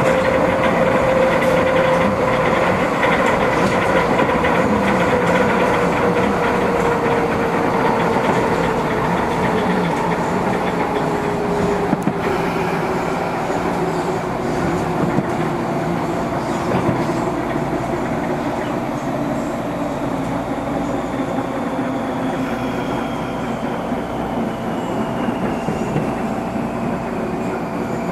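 MTR East Rail Line electric train running, heard inside the passenger car. The wheels and running gear make a dense rumble, with a whine that slowly falls in pitch. The sound grows gradually quieter as the train slows on its approach to the next station.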